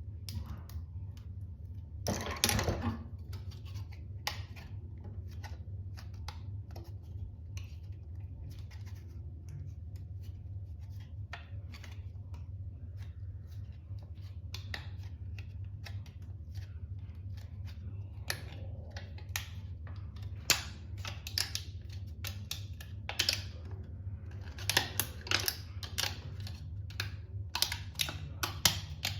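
Small hard plastic parts of a 3D-printed toy folding knife clicking and scraping as they are handled and fitted together: irregular clicks with a denser rattle about two seconds in and busier stretches near the end, over a steady low hum.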